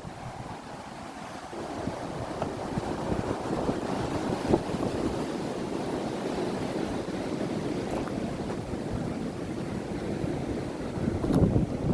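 Strong wind gusting against the microphone, an uneven rushing buffet that picks up about two seconds in and swells again near the end.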